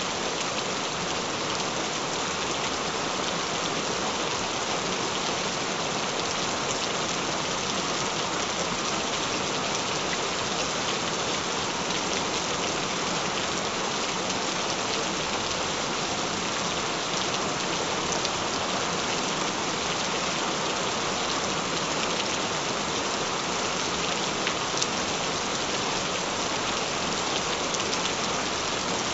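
Steady rain: an even hiss of many falling drops.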